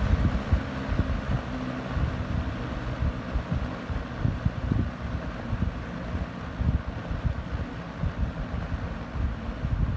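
1987 Lakewood P-223 20-inch box fan running on medium speed, its airflow buffeting the microphone in an uneven low rumble.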